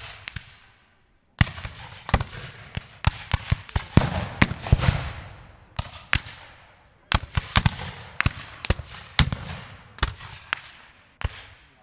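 Fireworks: a string of sharp bangs at irregular spacing, each trailing off in a fading crackle. There is a brief lull about a second in, and again around seven seconds in.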